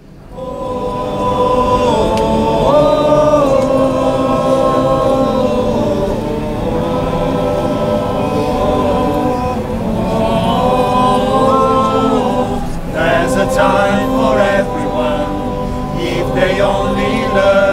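Choir singing, fading in over the first couple of seconds: several voices holding long notes that step up and down in pitch.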